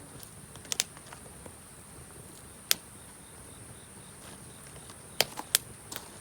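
Japanese cedar (sugi) wood burning in a campfire, giving a handful of sharp cracks and pops. Under it runs a steady high-pitched chorus of night insects.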